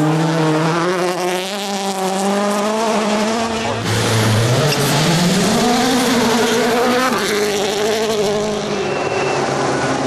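WRC Rally1 cars' 1.6-litre turbocharged four-cylinder engines running hard on a gravel stage, the engine note shifting from car to car. About four seconds in, one engine note drops low and then climbs steeply as that car accelerates.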